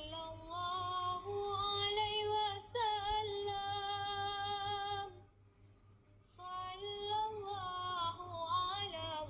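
A woman singing unaccompanied: held, wavering notes that slide between pitches, in two phrases with a short pause about five seconds in.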